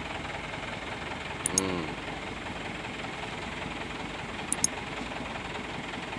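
Mitsubishi Canter truck's diesel engine idling steadily. Two pairs of short, sharp clicks come about a second and a half in and again about four and a half seconds in.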